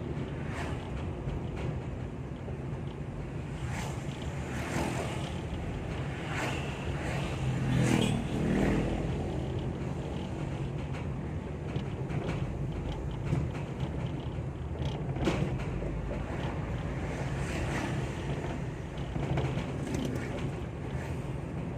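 Steady engine and road noise of a moving ambulance, with irregular knocks and rattles from the funeral bier (keranda) riding in the back. The loudest knocks come about 8 seconds in and again near 15 seconds.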